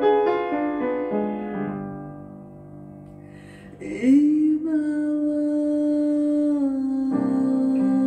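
Piano playing a slow ballad: a descending run of notes that fades away, a long held note from about halfway, then new chords near the end.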